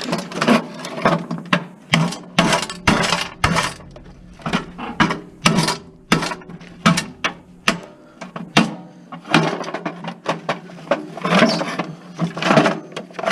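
Irregular knocks and clicks of hand tools working on the parts of a table saw being dismantled, some in quick runs and some spaced a second or so apart.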